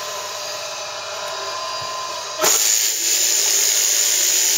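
Electric sheep-shearing handpiece, driven by an overhead electric motor through a down-tube, running with a steady mechanical whine. About halfway through, the sound jumps suddenly to a louder, hissing buzz that holds.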